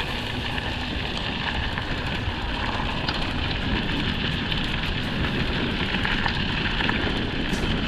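Steady rumbling, crackling noise of wind buffeting the microphone and tyres running over a dirt trail while riding a mountain bike, with scattered small clicks from gravel.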